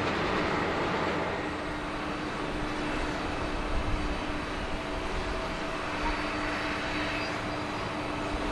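Boeing 747-400 jet engines running at taxi power as the airliner taxis. The noise is steady, with a low steady tone running through it.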